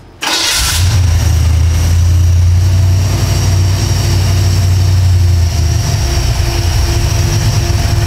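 FiTech EFI-equipped engine starting: a brief crank that catches, then a steady idle that steps down slightly about five and a half seconds in. It is now firing on all cylinders, its misfire from disconnected plug wires fixed.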